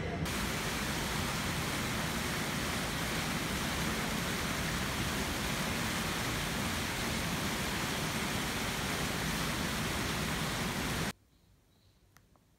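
Water cascading down the steps of a tiered stone fountain: a steady rushing noise that cuts off suddenly near the end.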